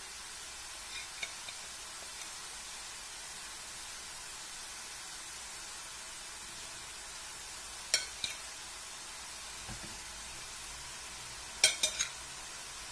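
Murukku deep-frying in hot oil, a steady sizzle. A slotted spoon clinks sharply against the pan a few times, faintly about a second in, then around eight seconds in, with the loudest clinks near the end.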